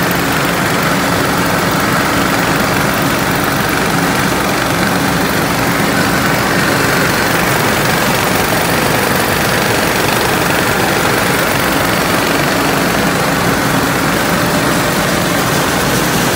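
Welding-electrode coating machinery running steadily, with rods fed through the flux coating press and carried along on belt conveyors. It makes a constant loud mechanical din with a steady hum underneath, unchanging throughout.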